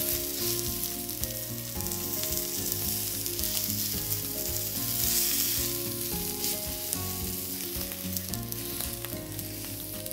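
Bone-in veal loin steak searing in olive oil in a hot skillet over high heat, sizzling steadily, with the sizzle swelling about halfway through.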